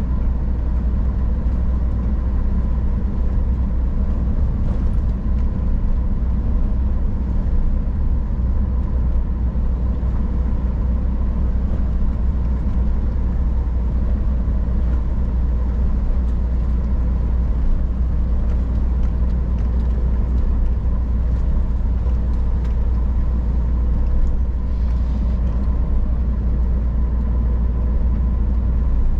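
Scania R440 truck's 13-litre straight-six diesel running at a steady speed while driving: an even low engine drone with road rumble and a faint steady whine over it.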